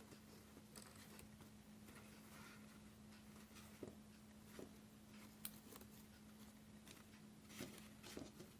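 Near silence: room tone with a faint steady low hum and a few faint scattered clicks.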